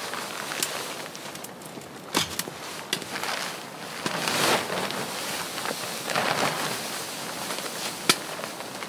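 Canvas tent fabric rustling and flapping as the front awning is pulled down and the door closed, with scattered sharp clicks and snaps.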